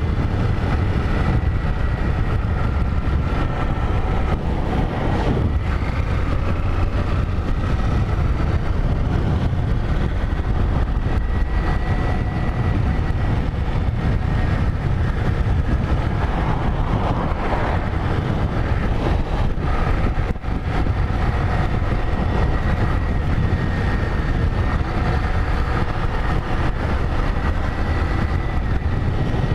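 Motorcycle engine running steadily while riding, a continuous low rumble with road and wind noise, briefly dropping about twenty seconds in.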